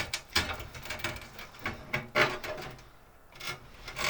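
Computer cables and case parts being handled: irregular rubbing and scraping with a few knocks as cables are pushed through the back of a PC case. The loudest scrape comes about two seconds in.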